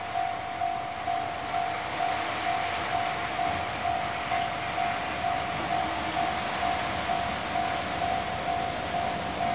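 Japanese railway level-crossing alarm ringing its steady electronic ding-ding, a little over two strokes a second. A high, thin squeal comes and goes from about four seconds in.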